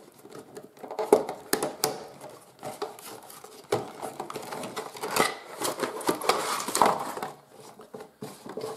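A cardboard product box being opened and its contents handled by hand: irregular clicks, scrapes and rustles of cardboard and paper.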